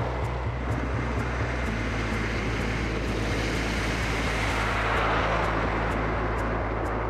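A wooden roller coaster train, loaded with water-filled test dummies, rumbles along its track on its first test run. The rumble is continuous and swells about five seconds in.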